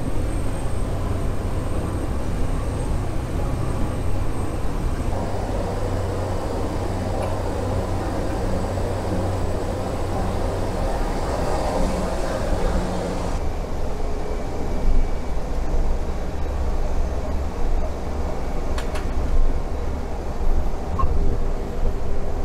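Cabin noise of a single-engine turboprop, a Cessna Grand Caravan, on final approach and landing: a steady drone of engine and propeller over a rush of air. Its tone shifts twice, and a couple of brief knocks come a few seconds before the end as the plane rolls on the runway.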